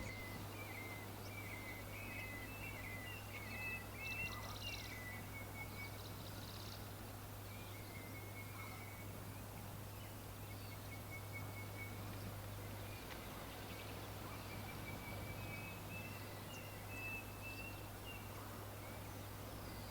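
Small birds chirping in quick series of short high notes, coming and going in several bouts, over a steady low hum.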